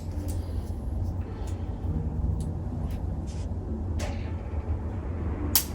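Steady low hum with faint taps and rustles of hands at work during a chiropractic adjustment. One sharp crack near the end, from the joint being adjusted with a stronger thrust.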